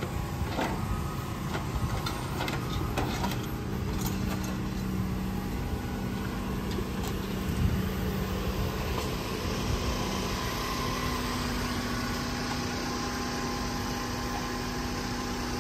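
Engine of a grapple-claw debris-removal truck running steadily, with several sharp knocks and clatters in the first four seconds as the claw handles debris. A higher steady whine comes in from about nine seconds in.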